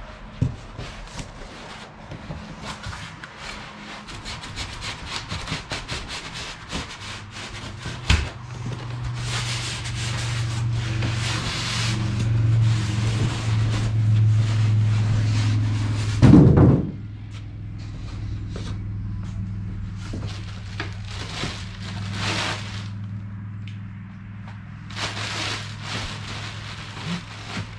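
Handling noise from unpacking and assembling a masonry saw: parts and packaging rubbing, scraping and rustling, over a steady low hum that is strongest in the middle. One louder thump comes about sixteen seconds in.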